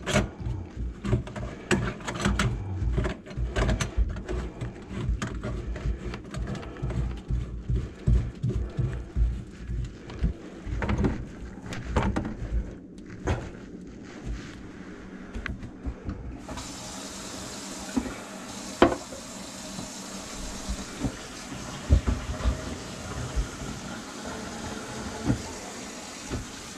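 Knocks and clatter of drain parts and tools being handled under a kitchen sink, then, a little past halfway, water suddenly starts running steadily from the tap into the sink drain, with a few knocks over it.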